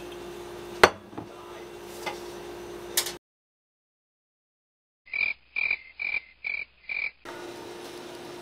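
A sharp knock about a second in, then a short dead silence, then a frog-croak sound effect: five short, evenly spaced croaks about half a second apart.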